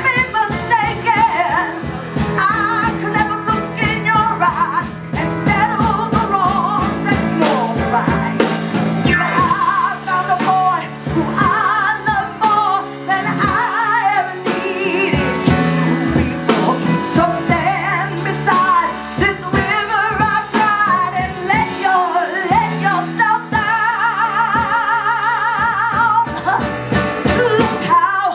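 A woman singing with a live band, the voice holding a long note with heavy vibrato near the end.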